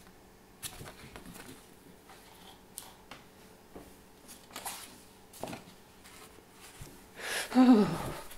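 Paper picture cards being handled, with scattered light rustles and taps as they are put down and picked up. Near the end a woman makes a short vocal sound that falls in pitch.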